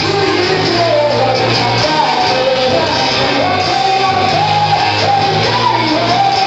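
Rock band playing live and loud, a singer's voice carrying the melody over electric guitars, bass and drums.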